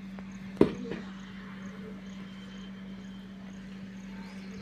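Plastic hand grip strengthener being handled in a cardboard box: one sharp clack about half a second in, with a smaller knock just after, over a steady low hum.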